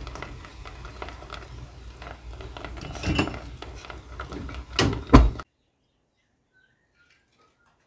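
A spoon stirring and scraping thick, cooked-down cashew jam in a metal pan, with small clicks and knocks against the pan and a few louder knocks about three and five seconds in. The jam has reached the point where it pulls away from the pan. The sound cuts off suddenly after about five seconds.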